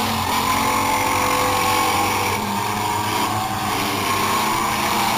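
Demolition derby car engines running on a dirt track: a steady, loud drone that shifts a little in pitch as the cars drive.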